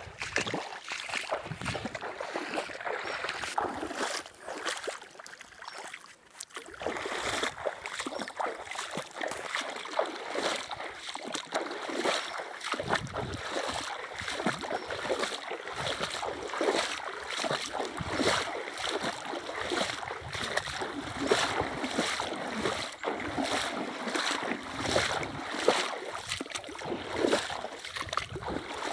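River water splashing and lapping around a small boat, a steady rush broken by many small splashes.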